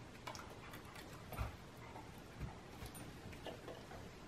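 Faint clicks and small mouth noises from a puppy taking treats from a hand, with a soft thump about a second and a half in.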